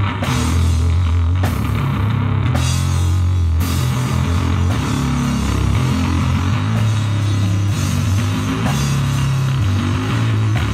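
A live rock band, drum kit and electric guitar through an amp, playing an instrumental passage. Sustained low notes shift in pitch every second or so under repeated drum and cymbal hits.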